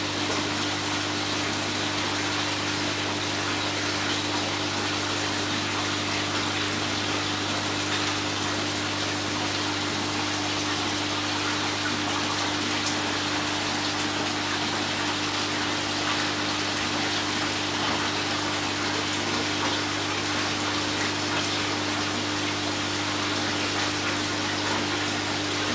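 Steady rush of running water over a constant low pump hum, unchanging throughout.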